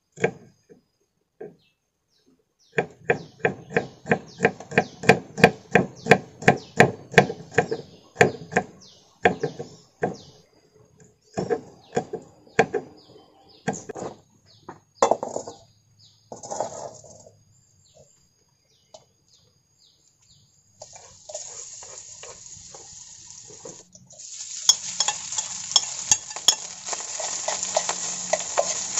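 A knife chopping on a wooden cutting board, a steady run of about three knocks a second, then scattered taps. Later, frying starts sizzling in a wok over a wood fire and grows louder near the end as rice goes in, with clinks of a utensil against the pan.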